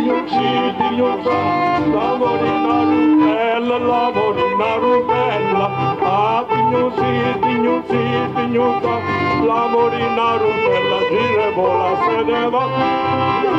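Live folk music: accordion and acoustic guitar playing a dance tune over a steady beat.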